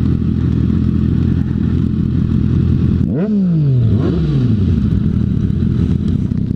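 Sport motorcycle engine running under steady riding noise, then two quick throttle blips about three and four seconds in, the revs jumping up sharply and falling away.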